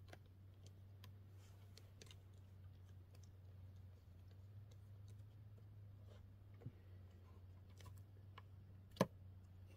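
Faint, scattered clicks and taps of a screwdriver and battery terminal hardware on a dirt bike's battery, with one sharper click about nine seconds in. A steady low hum sits underneath.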